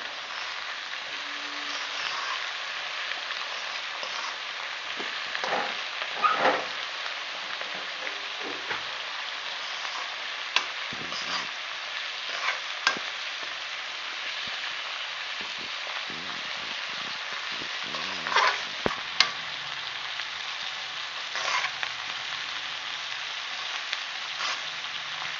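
Shredded cabbage and spices frying in mustard oil in a metal kadhai, a steady sizzle, while it is stirred with a spatula that scrapes and knocks against the pan every few seconds.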